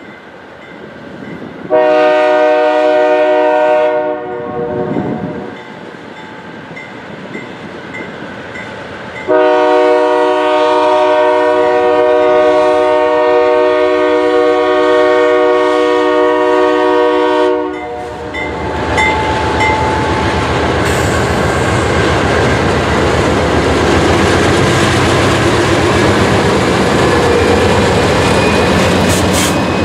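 Diesel freight locomotive's air horn sounding a chord, first a short blast, then a long held blast. About eighteen seconds in, the horn stops and the lead locomotives pass close by with a loud, steady rumble of engines and wheels.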